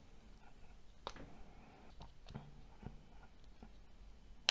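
A few faint, scattered clicks and taps of small phone parts being handled during disassembly.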